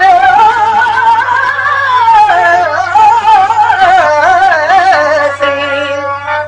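A male voice singing a Telugu stage-drama verse (padyam), drawing one syllable out into a long ornamented passage with heavy vibrato that climbs and falls in pitch. Near the end the voice fades and a harmonium takes over, holding steady notes.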